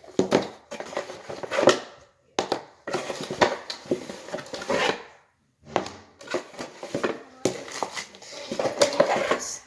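Plastic Play-Doh kit pieces and molds being handled, rattling and clicking in quick irregular bursts, with short pauses twice.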